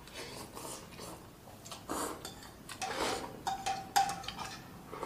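Close-up eating sounds of curry noodles: slurping and chewing, then a metal spoon clinking against a ceramic bowl while curry broth is slurped from it. A sharp clink about four seconds in is the loudest sound.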